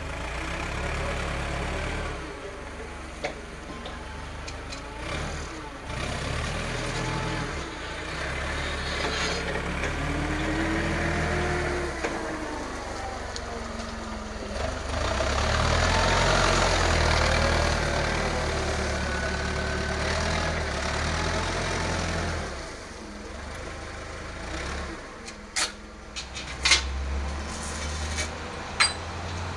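Propane-fuelled TCM forklift engine running as the forklift drives, its pitch rising and falling with the throttle. A few sharp knocks near the end.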